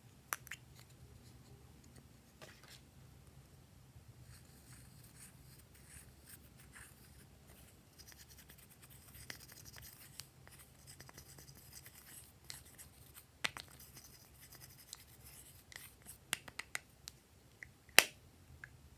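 A small applicator scraping pressed blue eyeshadow powder out of a plastic compact, a soft, dry scratching that runs for several seconds, with a click as the case opens at the start and scattered plastic clicks and taps, the sharpest near the end.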